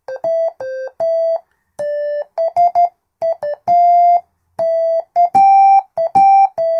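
Simple monophonic sine-wave synthesizer built from AD9833 DDS signal generator modules, played through small cheap speakers: a halting tune of single notes, one at a time, each starting and stopping with a click and separated by short silences. The result is awful, which is why a tune is not usually played on it.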